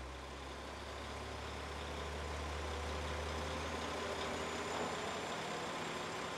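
KiHa 40 series diesel railcar pulling away from a station platform, its diesel engine giving a steady low drone.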